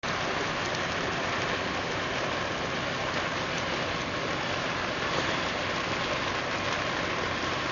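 Steady hiss of falling rain, with a fine, even crackle of drops.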